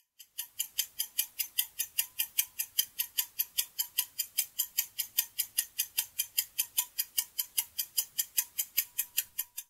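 Clock-ticking sound effect for a quiz countdown timer: sharp, even ticks about four a second, starting about half a second in and stopping just before the end, marking the seconds left to answer.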